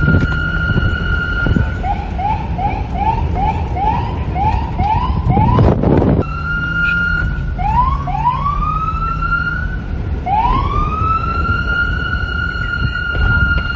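Police car siren: a held high tone breaks into a fast yelp of short rising chirps, about two and a half a second. A loud short burst of noise comes about six seconds in, then the siren wails, each rise swooping up and levelling off into a held tone, over a steady low traffic rumble and wind.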